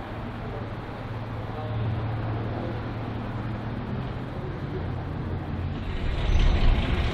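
Diesel locomotive engine running steadily out of view, a low hum that slowly grows louder; about six seconds in it becomes louder and rougher.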